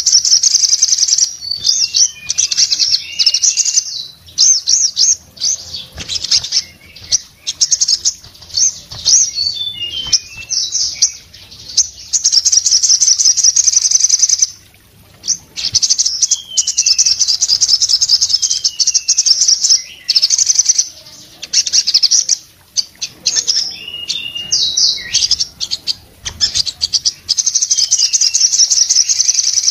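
A caged sogon sunbird singing loudly, its song long runs of very rapid, high chattering trills broken by short pauses, with a few short falling whistles mixed in. Its wings flutter as it sings.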